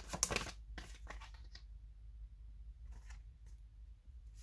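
A tarot deck being shuffled by hand: a quick run of papery card strokes for about a second and a half, then a few faint card sounds near the end as a card is drawn. A steady low hum runs underneath.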